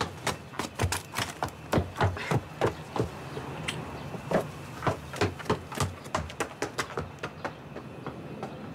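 Quick, uneven thuds and taps, about three a second, thinning out after about six seconds: hurried footsteps with a handheld camera being jostled.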